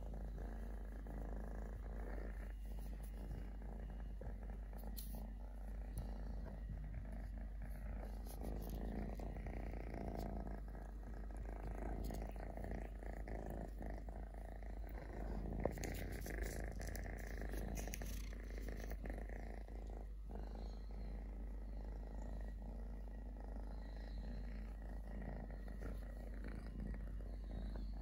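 Kitten purring steadily and continuously while being stroked, close up, with a few brief rustles of handling.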